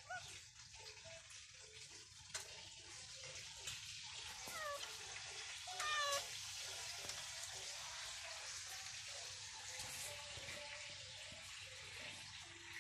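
Domestic cat meowing a few times, short calls, the loudest about six seconds in.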